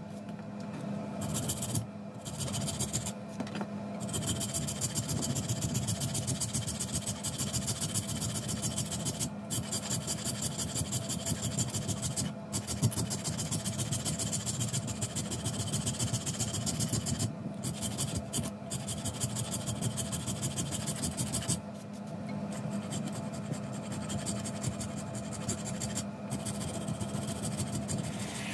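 A hand file or thin saw rasping back and forth on handle material clamped in a vise, in quick, even strokes. A steady low hum runs underneath.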